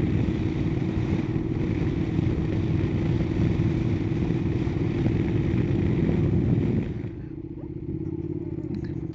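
Honda NC750X DCT's parallel-twin engine running at a steady pace, mixed with wind and road noise. About seven seconds in the sound drops off and gets quieter as the bike slows.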